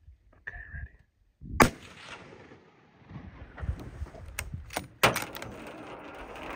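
A hunting rifle shot about a second and a half in, its report echoing on for about a second afterwards. A second loud, sharp bang comes about five seconds in, followed by a few clicks.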